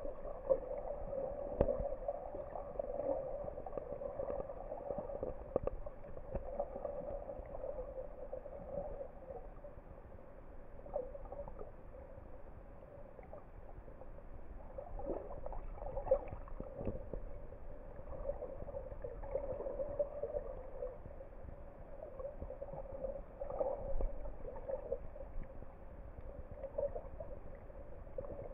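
Muffled underwater sound picked up by a submerged camera: a steady hollow wash of water with scattered faint clicks and knocks.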